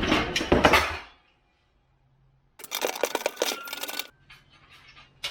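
Metal tools tapping and clinking on the bent sheet-metal body of a Toyota Land Cruiser 80 series, in two short runs of quick strikes with a pause between, the second with a faint ring.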